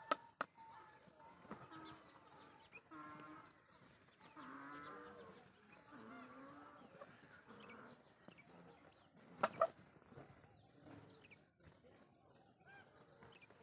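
Peafowl giving short calls, mostly in the first half, with small birds chirping high and faint throughout. Sharp knocks come just after the start and twice, loudest, about nine and a half seconds in.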